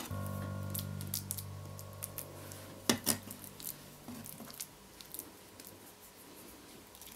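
Chef's knife scraping and tapping on a wooden cutting board as it cuts and pushes soft fish paste apart, in scattered short taps with one sharp tap about three seconds in. A held background music chord fades away over the first three seconds.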